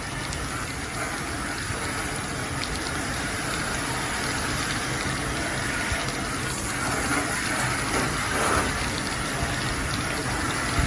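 Steady spray of water from a hand-held water spray gun rinsing the outdoor condenser fins of an air conditioner, a continuous hiss of spraying and running water.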